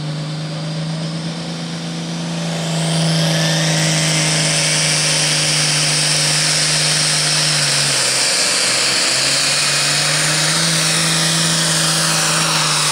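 International Pro Farm pulling tractor's turbocharged diesel engine revving hard at full power. About three seconds in it gets much louder, with a high turbo whine rising sharply. There is a brief dip near eight seconds before it comes back up as the tractor makes its pull.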